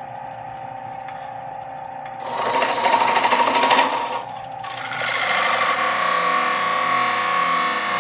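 Wood lathe spinning a walnut bowl, a steady hum, while a turning tool hollows the inside; about two seconds in the tool bites hard into the walnut with a loud, rough, rapidly fluttering cut, which eases just after four seconds and then goes on as a steady hissing cut with a ringing tone. The audio is slowed down with the slow-motion picture.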